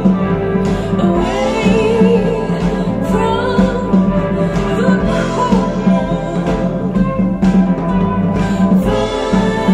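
A song with a woman singing over guitar, played through Polk Audio R200 bookshelf speakers.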